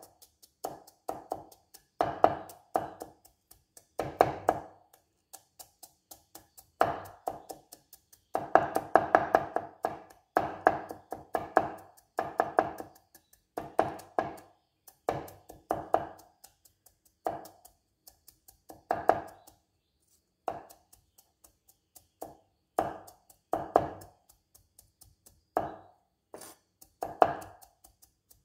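Steel cleaver chopping garlic on a wooden chopping board: sharp knocks in quick bursts of several strokes, with short pauses between bursts.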